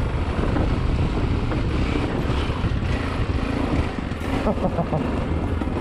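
Motorcycle engine running at low speed on a dirt trail, with steady rumble and wind on the bike-mounted camera microphone.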